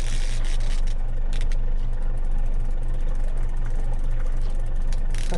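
Boat motor running steadily, a low, pulsing drone.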